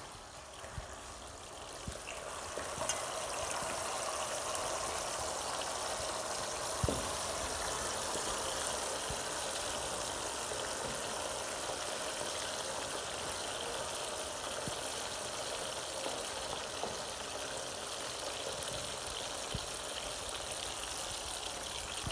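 Whole fish frying in hot oil in a frying pan: a steady sizzle that builds over the first few seconds, with a few light clicks of a metal fork against the pan.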